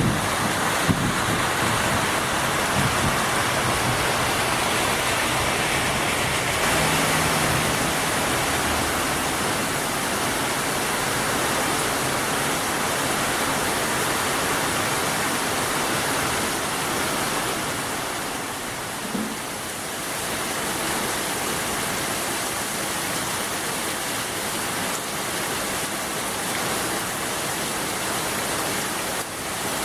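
Rain falling steadily: a continuous, even hiss of rainfall.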